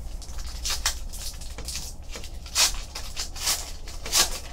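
Foil trading-card pack wrapper crinkling and tearing as it is pulled open by hand, in a run of short crackles with two louder rips near the middle and near the end.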